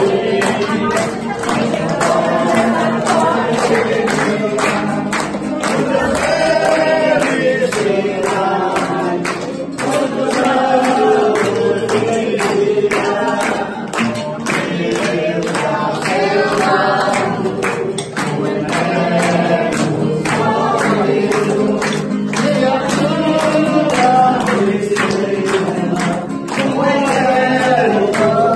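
A group singing together to a strummed acoustic guitar, with steady hand clapping in time with the music.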